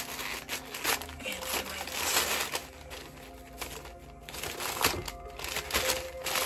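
Paper wrapper crinkling and rustling as a food wrap is unwrapped by hand, over background music.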